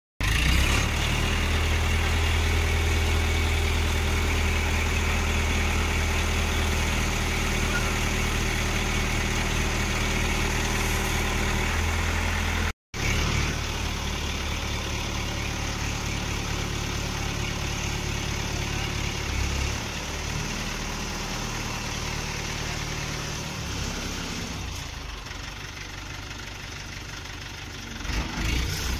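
Heavy diesel machinery engine running steadily at a low, even speed, with a brief drop-out about halfway.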